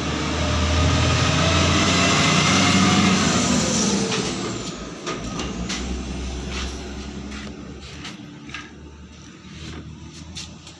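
A large vehicle passing close by, its noise swelling over the first few seconds and then fading away. Light clicks and taps follow as it dies down.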